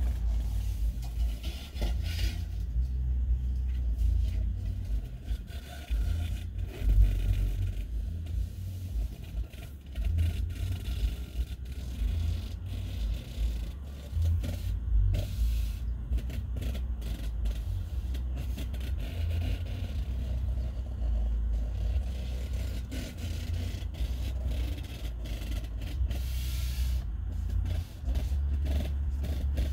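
Handling noise from an inspection camera moving through a masonry chimney flue: a steady low rumble with intermittent scraping and light knocks as it rubs against the sooty flue walls.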